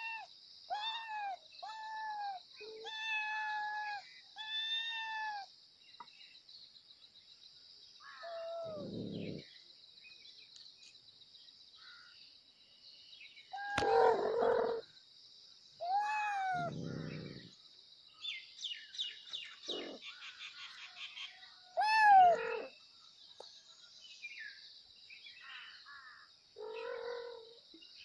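Kittens meowing: a quick run of four meows in the first five seconds, then single meows every few seconds. A steady high-pitched chirring runs behind them and fades out past the middle.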